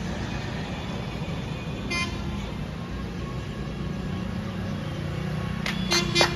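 Steady rumble of road traffic with a short vehicle horn toot about two seconds in. Music with sharp beats starts near the end.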